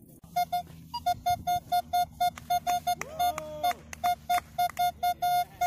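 Metal detector beeping repeatedly at one pitch, about four beeps a second, as the search coil passes back and forth over a buried metal target. There is a brief higher beep about a second in, and a short tone that rises, holds and falls about halfway through.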